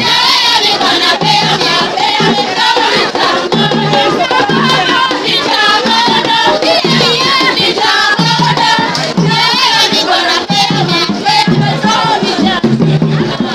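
Ghanaian traditional dance music: a group singing together in chorus over drums, with a rattle and other struck percussion keeping a steady rhythm.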